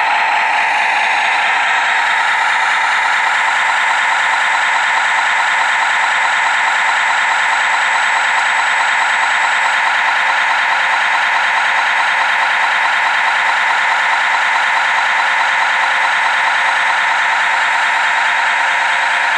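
Simulated diesel truck engine idling steadily from the RC truck's electronic sound module, played through a small speaker that gives it a thin sound with no deep bass.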